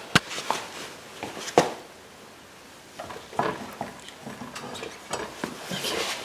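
Sharp metallic clinks and knocks with handling noise as a motorcycle front wheel is worked back into the forks, its brake rotor being lined up between the pads; two louder knocks come in the first two seconds.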